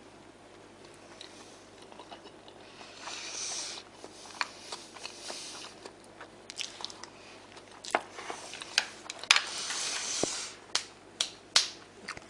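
A person eating rice from a ceramic bowl with chopsticks: chopsticks clicking against the bowl and chewing, with louder knocks in the second half as the bowl and chopsticks are set down on a wooden table.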